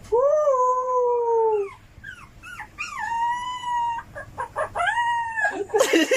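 A dog howling: three long, drawn-out howls with short yips between the first two.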